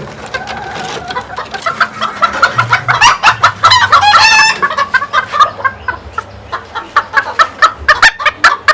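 Chickens clucking rapidly, with a rooster crowing about three seconds in.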